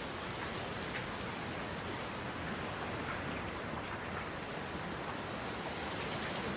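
Steady rain falling, an even hiss with scattered drop hits.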